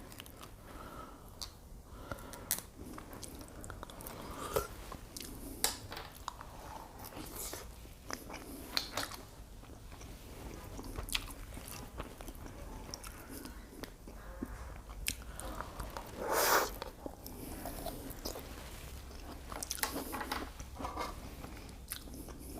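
Close-miked eating sounds from a person chewing and biting shrimp and fettuccine: irregular wet mouth clicks and smacks, with a louder noisy burst about sixteen seconds in.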